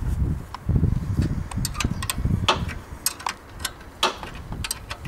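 Irregular sharp clicks and clinks of hand tools on metal, over bursts of low rumbling handling noise.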